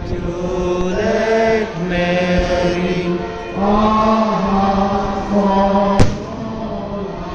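Slow hymn sung in long, held notes, with one sharp bang about six seconds in.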